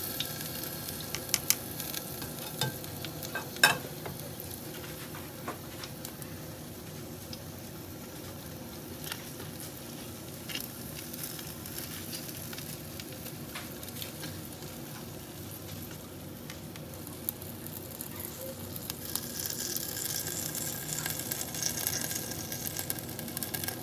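Chicken inasal sizzling on a wire rack: a steady hiss of cooking fat with scattered crackles and pops, the sharpest about three and a half seconds in.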